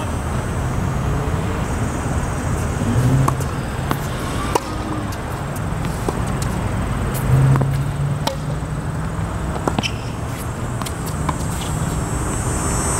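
Tennis rally on an outdoor hard court: sharp racket-on-ball hits every second or two, with footsteps on the court, over a steady low background rumble.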